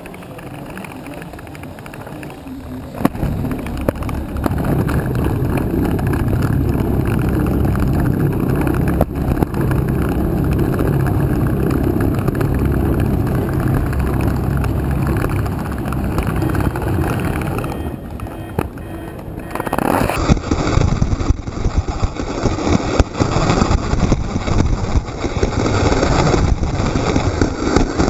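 fischertechnik model roller coaster car heard from on board: a knock about three seconds in, then a steady mechanical rumble as the car is hauled up the lift hill. From about twenty seconds in it changes to a rough, jittery rattle of the car running fast along the track.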